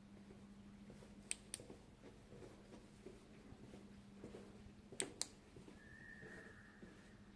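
Near silence over a faint steady hum, broken twice by a pair of sharp clicks about a quarter second apart, with a faint brief whistle-like tone near the end.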